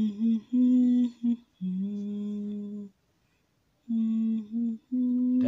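A man humming a slow tune in long held notes, with short breaks between phrases and a pause of about a second roughly three seconds in.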